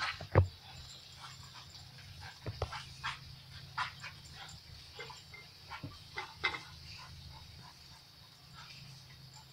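Golden retriever giving a string of short barks and yips as it snaps at the spray of a lawn sprinkler. The sounds are loudest about half a second in and stop after about six and a half seconds, over the steady hiss of the sprinkler.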